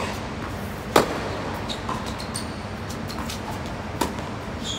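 Tennis balls struck by rackets in a doubles rally on a hard court: a sharp hit about a second in is the loudest, with another about four seconds in and one right at the start. Fainter ball bounces and brief high squeaks come between the hits.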